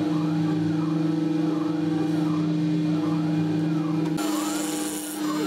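CNC wood router milling MDF with an 8 mm radius cutter: a steady spindle tone under a whine that rises and falls about every 0.8 s as the axis drives sweep the head back and forth. About four seconds in, the lower hum drops away and a hissier cutting noise comes in.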